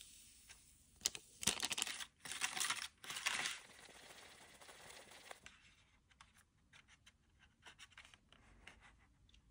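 Crinkling and scraping, loudest in short bursts in the first half, as slime-base powder is shaken out of a plastic packet into a plastic candy tray and stirred with a small plastic spoon; light clicks and scrapes of the spoon against the plastic follow.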